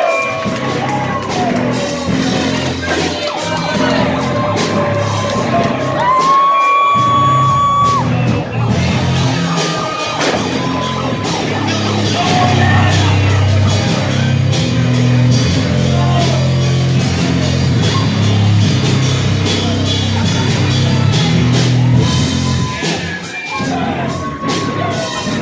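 Loud rock music with vocals, with shouts and yells over it.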